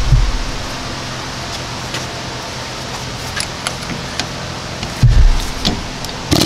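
Pneumatic air hammer with a chisel bit starts hammering near the end, peening over the factory stakes that hold an original ball joint in the lower control arm. Before that come a steady hum from a shop exhaust fan, a few light clicks as the tool is positioned, and a short low thump about five seconds in.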